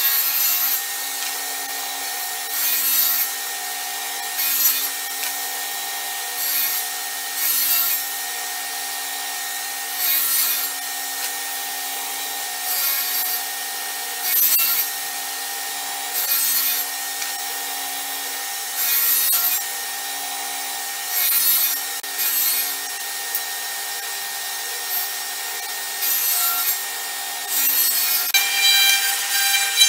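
Table saw running steadily, its blade cutting plywood in a series of short passes as the panel is pushed through on a sled to cut out slots. Each pass brings a brief, louder hiss over the steady hum of the motor.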